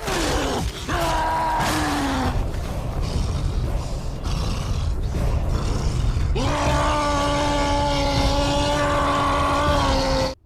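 A deep voice yelling as the Hulk, over a steady rumbling din: two short cries falling in pitch at the start, then one long held yell from about six seconds in until just before the end.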